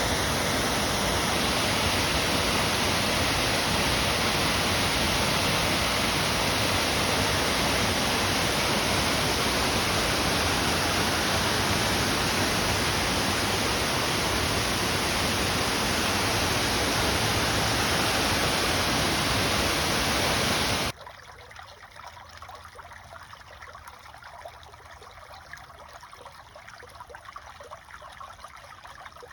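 Rushing water, a loud steady hiss like a waterfall or fast stream, which cuts off suddenly about three quarters of the way through. A much quieter stream trickling and gurgling follows.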